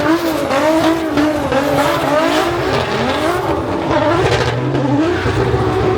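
Drift car engine revving up and down again and again as the throttle is worked through a slide, with tyre squeal.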